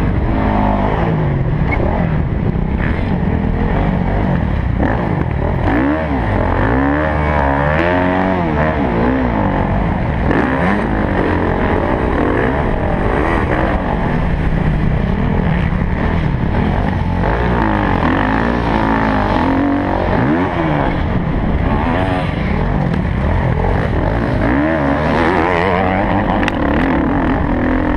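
Motocross bike engine ridden hard, its pitch rising and falling again and again as the throttle is opened and eased off through the track's sections, heard loud and close from the rider's helmet camera.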